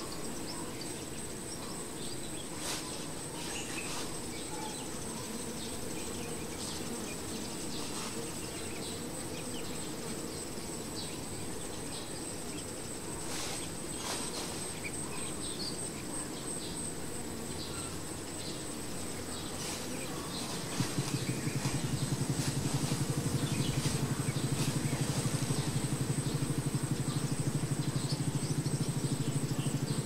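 A cluster of honey bees hums steadily. About two-thirds of the way in, a louder, low pulsing engine drone starts and runs on.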